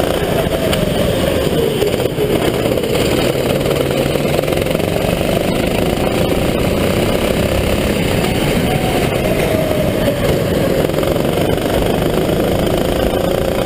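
Sodi RT8 rental kart's engine heard onboard at racing speed, its pitch dropping into corners and rising again as the kart accelerates out.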